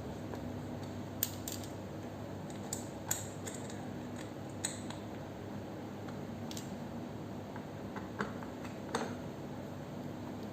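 Scattered light clicks and taps of parts of a children's ride-on bike being handled and pushed into place during assembly, over a steady low hum.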